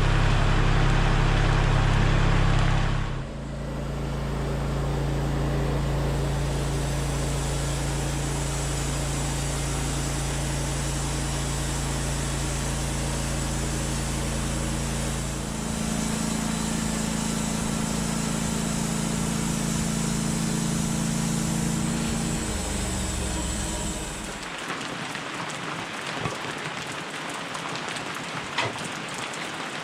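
A steady low drone shifts pitch a few times and fades out about twenty-four seconds in. After that, rain falls steadily with a few faint taps.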